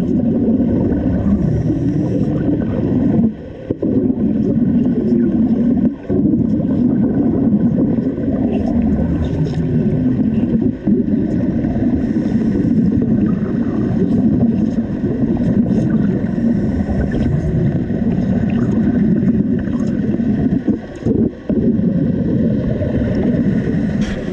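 Underwater wet stick welding heard through a camera's waterproof housing: a continuous muffled bubbling roar from the arc and its gas bubbles, with a few short breaks.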